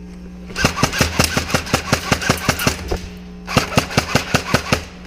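Airsoft rifle firing close by in two strings of rapid shots, about six a second, the first about two seconds long and the second just over a second.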